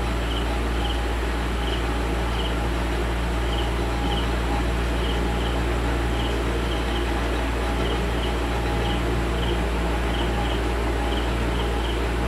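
Steady low electrical hum with a haze of background noise, and faint short high chirps repeating at irregular intervals, a few a second.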